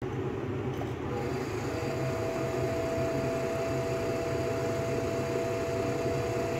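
Motor-driven three-jaw chuck slowly turning a welded auger shank to check the weld buildup for high and low spots: a steady mechanical hum with a low drone, joined about a second and a half in by two steady whining tones.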